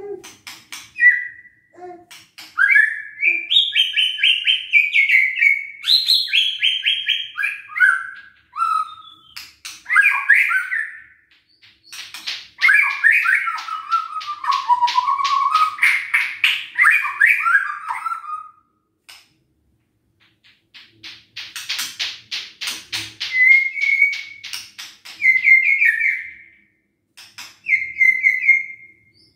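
White-rumped shama singing: loud whistled phrases that slide up and down, broken by rapid dry clicking rattles in the middle of the song and again after a short pause about two-thirds of the way through.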